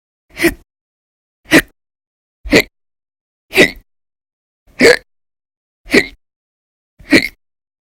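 A person hiccuping loudly and regularly: seven sharp hiccups, about one a second, with silence between them. They are part of a bout of persistent hiccups that goes on for hours.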